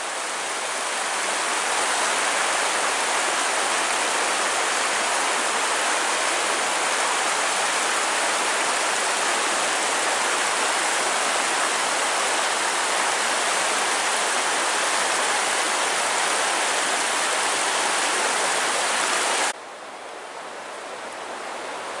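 Steady rush of flowing water, which cuts off abruptly near the end.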